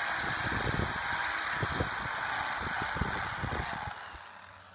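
Power drill running, its bit boring through the steel langet of an axe head into the wooden handle, with irregular low knocks as the bit bites. The sound dies away near the end.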